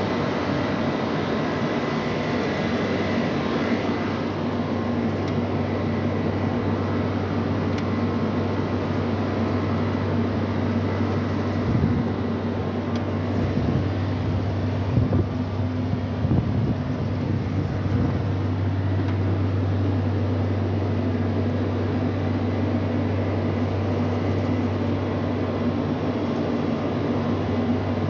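Air-cooled chiller machinery running with a steady, low, droning hum. A few light knocks come near the middle.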